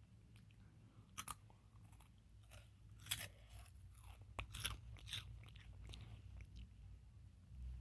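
Crunchy chewing: a few sharp crunches about a second in, then a cluster of them between three and five seconds in.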